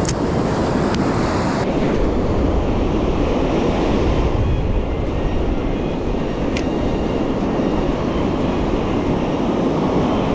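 Steady rushing of surf washing onto a sandy beach, with wind buffeting the microphone.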